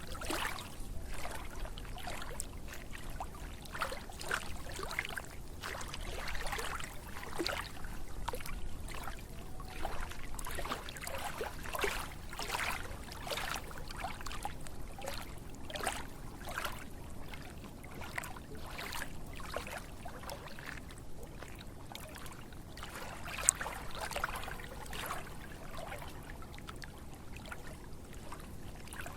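Water trickling and splashing in an irregular run of small splashes, with one sharp click about two-thirds of the way through.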